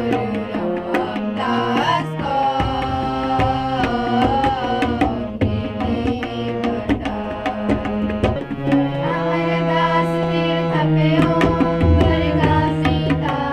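Sikh shabad kirtan: a group of voices singing a hymn to harmonium accompaniment, with tabla strokes keeping the rhythm.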